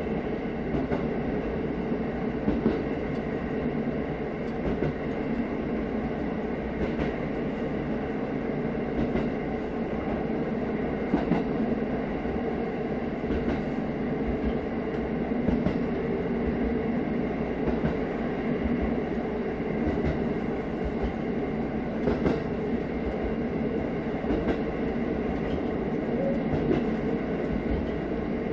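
KiHa 54 diesel railcar running along the line, heard from inside its rear driver's cab: a steady diesel engine hum over the rumble of wheels on rails, with scattered clicks as the wheels pass over rail joints.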